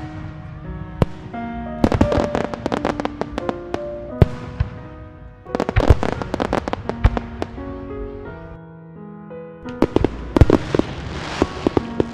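Aerial fireworks bursting in three volleys of sharp crackling bangs, about 2 s in, about 6 s in and from about 10 s in, over background music with sustained notes.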